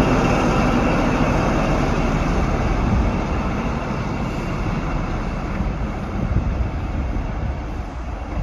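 Class 43 HST power car's MTU diesel engine running as the train pulls away, its engine drone and wheel noise fading steadily as it recedes.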